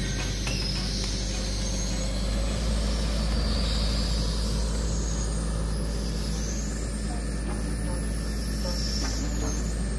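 Crane truck's diesel engine running steadily at a low, even rumble.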